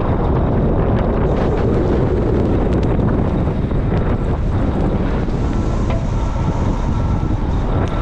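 A large farm machine's diesel engine running steadily as it drives, with strong wind buffeting the microphone.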